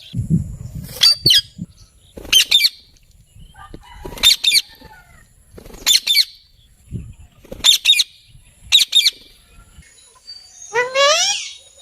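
Parrot calling in a series of short, sharp squawks about every one to two seconds, then one longer call with a rising sweep near the end. A low rumble sits under the first half-second.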